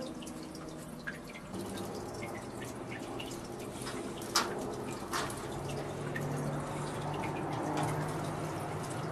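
Light, scattered clicking and scuffling of Maltese puppies wrestling on a blanket, over a steady low hum; one sharper click comes about four seconds in.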